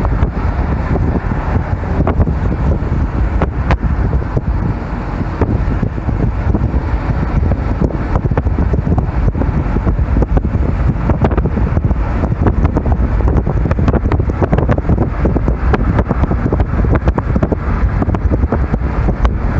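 Steady, loud noise of a car driving on the road, with wind rumbling and buffeting on the microphone.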